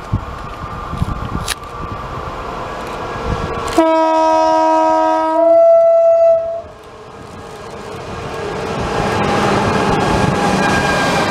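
An electric locomotive hauling a freight train of hopper wagons sounds its horn for about three seconds, about four seconds in; partway through the horn changes from a chord to a single higher note. The horn then stops, and the rumble of the locomotive and wagons grows louder as the train comes through.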